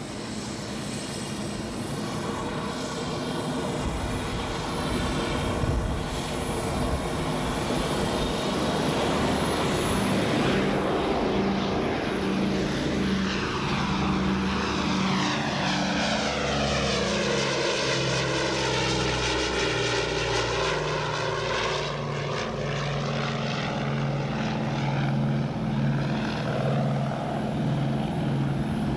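Propeller airliner engines droning, growing louder over the first ten seconds. A Douglas DC-6, with four Pratt & Whitney R-2800 Double Wasp radial piston engines, then flies low overhead in a steady propeller drone, its tone sweeping as it passes about twenty seconds in.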